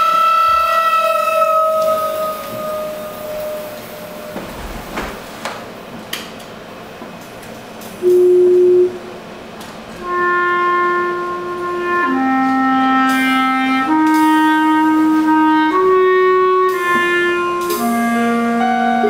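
Clarinet in a live ambient experimental ensemble playing slow held notes: a long note that fades over the first few seconds, a quieter stretch, then from about halfway a slow melody of sustained notes, each a second or two long, over a quiet ensemble background.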